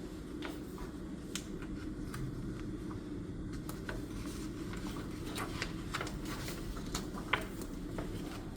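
Small desk noises of studying: pen scratching and tapping on paper in short, irregular strokes, with one sharper click near the end, over a steady low room hum.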